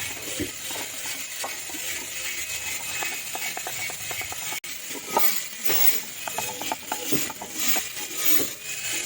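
Wood being hand-carved: irregular scraping, light knocks and clicks of carving chisels cutting into wood, with a short break about halfway through.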